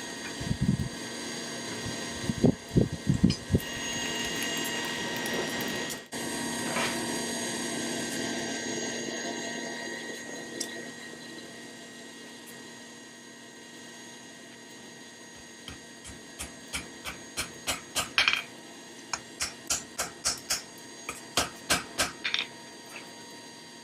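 Forging at the anvil: sharp hammer strikes on hot steel, a few scattered blows early on, then a steady run of about two to three blows a second near the end, over a continuous machinery hum.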